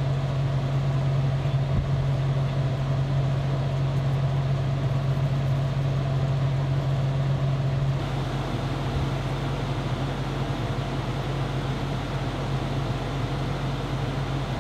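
Steady low hum of machinery running in a mobile radar truck's cabin, a constant drone with an even hiss over it; it drops a little in level about eight seconds in.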